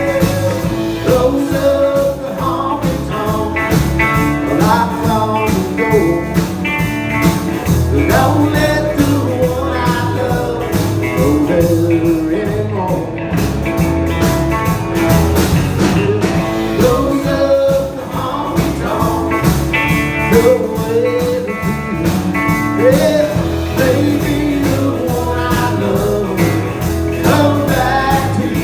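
A band playing a song: guitars, bass and drums with a steady beat.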